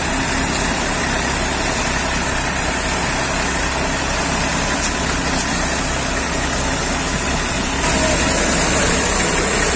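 Diesel Eicher 380 tractor running steadily under load, driving a wheat thresher through its PTO shaft as sheaves of wheat are fed in. The combined engine and threshing-drum noise is steady and gets a little louder about eight seconds in.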